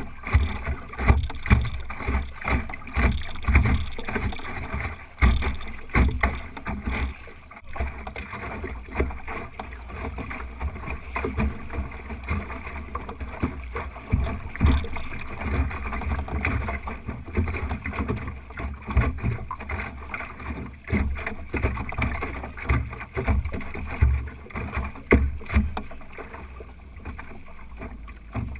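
Water splashing and slapping against the hull of an Optimist sailing dinghy under way, a steady rush broken by many irregular knocks and slaps.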